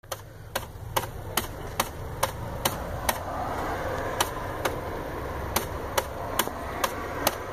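Sharp ticks repeating evenly about twice a second, over a low steady rumble.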